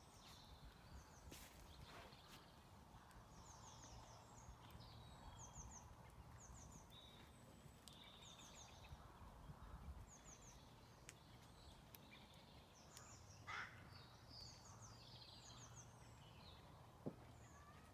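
Near silence: faint outdoor ambience with a small bird calling now and then, short high chirps in quick groups of three or four.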